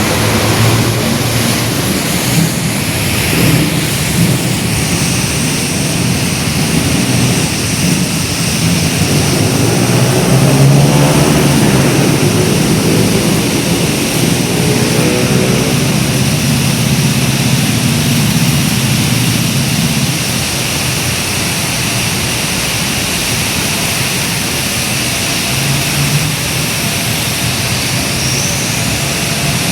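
Road traffic in the rain: a steady hiss of tyres on a wet road mixed with engines, with one vehicle passing close and louder about ten to thirteen seconds in.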